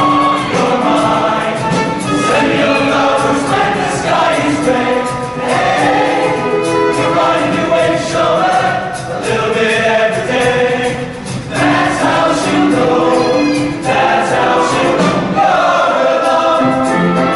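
Men's show choir singing a song together in harmony, holding chords that change every half second or so.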